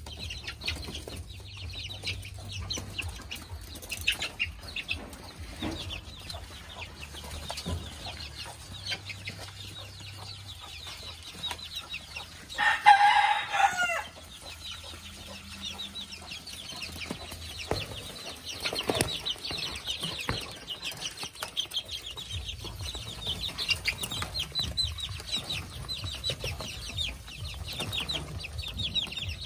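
A flock of young mini bantam chickens peeping and clucking, with many short high chirps throughout. About halfway through, one bird gives a louder, drawn-out call lasting over a second.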